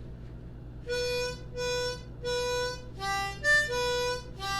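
Harmonica playing a short tune starting about a second in: three held notes on the same pitch, then a quicker run of higher notes and two-note chords.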